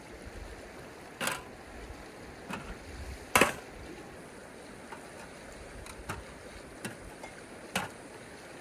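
Steady rush of flowing river water, with about seven sharp clicks and knocks from objects being handled at irregular intervals. The loudest knock comes about three and a half seconds in.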